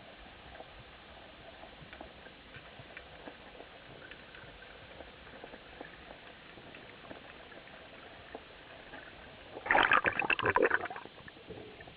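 Underwater ambience: a faint hiss with scattered small clicks, then, near the end, a loud burst of bubbling lasting a little over a second as a cloud of air bubbles swirls past.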